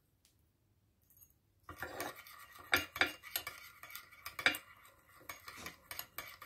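A metal teaspoon stirring in a small ceramic bowl, scraping and clinking against its sides as it mixes salt and pepper into lime juice. It is quiet at first, then a quick run of scrapes and taps starts after about a second and a half.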